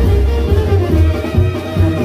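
An ensemble playing music with a strong, rhythmic bass line under a dense layer of pitched instruments.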